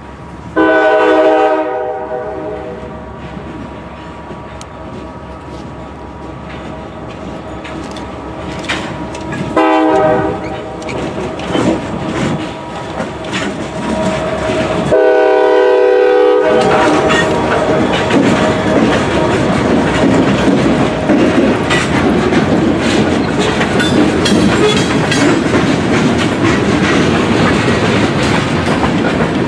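CSX GP40-2 locomotive sounding its Nathan K5LA five-chime air horn in three blasts, the middle one shorter, as it approaches and passes, with the rumble of its turbocharged EMD 16-645 diesel growing louder. Freight cars then roll by with steady clickety-clack from the wheels.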